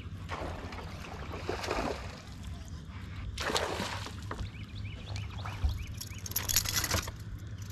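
A hooked bass splashing and thrashing at the surface in several bursts as it is reeled in and lifted from the water on a buzzbait.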